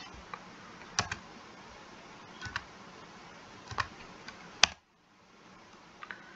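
Computer keyboard typing: sparse, irregular keystrokes over a faint hiss, ending with one louder keystroke about four and a half seconds in, as a console command is entered.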